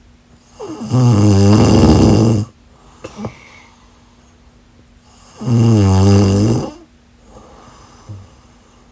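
Loud snoring: two long, pitched snores about four seconds apart, the first lasting about two seconds and the second a little shorter, with quiet breathing between them.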